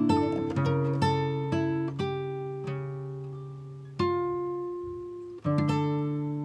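Background music of acoustic guitar, plucked notes ringing and fading, with a new note or chord struck every second or so.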